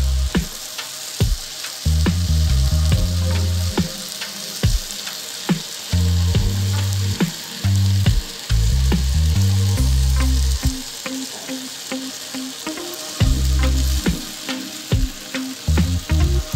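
Pancit bihon noodles and vegetables sizzling in a frying pan as they are stirred with a wooden spatula, with frequent sharp clicks. Background music with a heavy, stepping bass line comes and goes over it and is the loudest sound.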